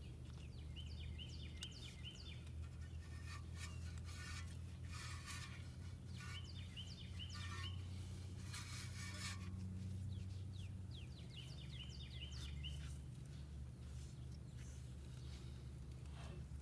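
A songbird singing short repeated chirping phrases every few seconds, over a steady low hum, with a few stretches of scraping from work on the brake parts at about 3 to 5 and 8 to 10 seconds in.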